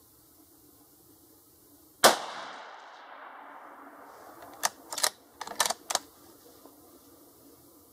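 A single shot from a Ruger Mini-14 Ranch Rifle in 5.56, firing a 68-grain Hornady .223 load, about two seconds in; the report rings away over about a second. A few seconds later comes a quick run of smaller sharp clicks and taps.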